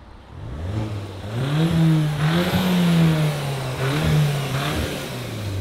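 2024 Volkswagen GTI's turbocharged four-cylinder, with the muffler deleted, accelerating past and away. The exhaust note climbs in pitch, holds with a short break about four seconds in, then drops near the end.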